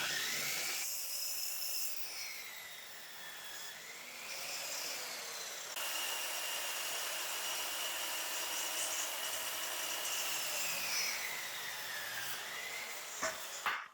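Compound miter saw running and cutting hardwood crown molding: a steady high motor whine with a hiss of sawing, its pitch sagging a few times as the blade is loaded in the cut and then picking back up.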